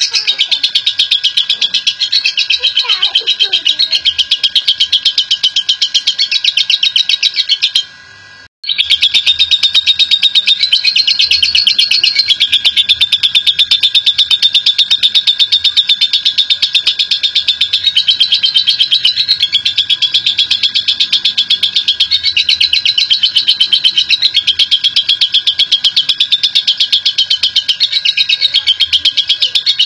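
Lovebird ngekek: a long, very rapid, high-pitched chattering trill that runs on continuously, breaking off briefly about eight seconds in and then resuming.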